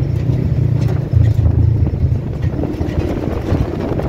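Polaris RZR side-by-side driving along a dirt trail, its engine running with a low drone that wavers unevenly in level.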